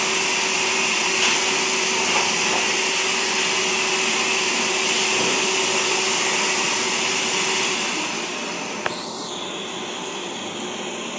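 Pet grooming blower dryer running, a steady rush of air with a motor hum under it. About eight seconds in the sound drops to a quieter, softer rush, and a single click follows about a second later.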